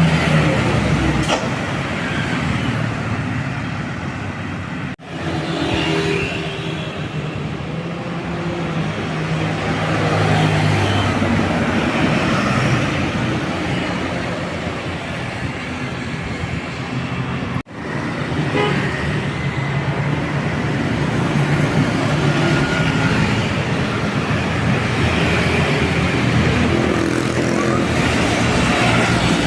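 Intercity buses driving past in traffic with their engines running, sounding multi-tone 'telolet' horns several times. The sound drops out briefly twice.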